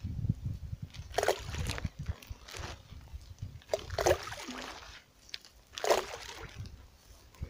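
Handfuls of bait thrown by hand into still water, landing in about four splashes a second or two apart, with wind rumbling on the microphone at the start.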